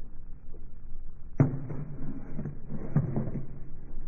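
Gunshots echoing in an indoor shooting range: two sharp reports about a second and a half apart, each with a short echo.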